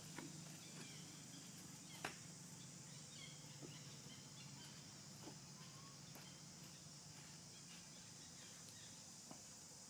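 Near silence: quiet outdoor background of a steady faint hiss and low hum, with a few soft ticks, the clearest about two seconds in.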